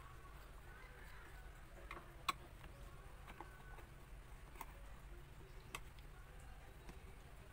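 A few faint, scattered clicks and taps of small hardware being handled as a receptacle box is screwed in place, over a low steady hum.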